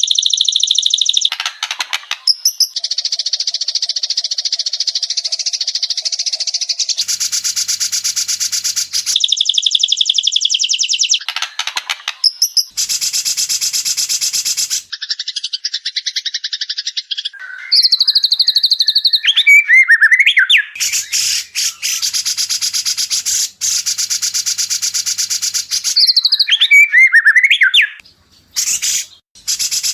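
White-rumped shama song edited into a continuous masteran loop: rapid rattling trills and chattering notes in blocks that switch abruptly every second or two, with quick whistled phrases near the middle and near the end.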